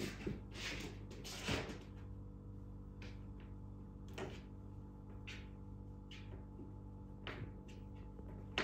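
A playing kitten's irregular short knocks and scuffs against a wooden floor and a wooden TV cabinet, over a steady low hum.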